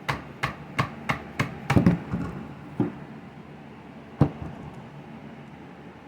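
Hammer tapping repeatedly, about three blows a second for two seconds, then two single blows, the loudest about four seconds in: knocking a stuck pole saw attachment off the power head's drive shaft.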